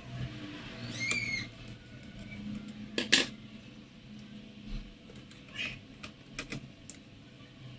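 Scattered sharp clicks and taps, the loudest double click about three seconds in, over a steady low hum, with a short chirping call about a second in.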